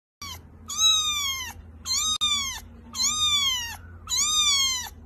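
A young kitten mewing over and over: high-pitched mews, each falling in pitch and lasting under a second, coming about one every second and a quarter.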